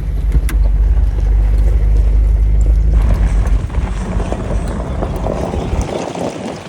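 Jeep TJ driving fast on a gravel road, heard from inside: a steady low engine and drivetrain drone with occasional ticks. About three seconds in, a louder rushing road and tyre noise takes over, and near the end the low drone drops away.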